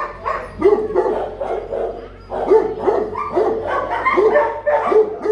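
A dog barking in a run of short barks, about two a second, with a pause of about a second partway through.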